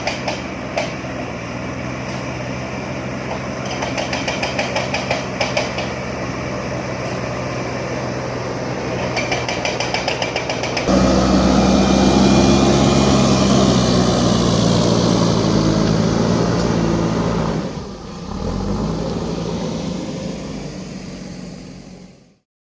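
JCB backhoe loader's diesel engine running steadily, with a few short spells of fast clicking, then running louder and harder about halfway through. It dips briefly near the end, and the sound cuts off just before the end.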